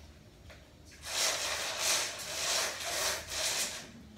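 Rummaging in a cardboard box close to the microphone: scraping and rustling in about five strokes over roughly three seconds, starting about a second in and stopping shortly before the end.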